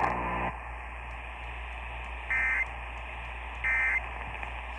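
Two short bursts of EAS end-of-message data tones over radio hiss and hum, a harsh digital warble about a third of a second each, spaced about a second and a half apart; they mark the end of the emergency alert. A hum in the first half second cuts off abruptly.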